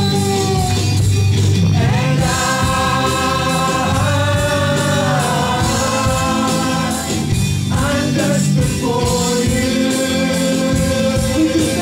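A man singing a slow Christian worship song into a microphone, holding long notes that slide between pitches, over steady instrumental accompaniment.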